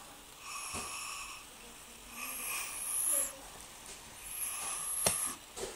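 A toddler making three raspy, breathy zombie growls, each about a second long. A sharp click comes about five seconds in.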